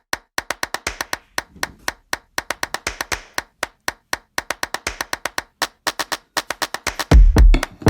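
Background music with a fast, even clap-like percussion beat; heavy bass drum beats come in about seven seconds in.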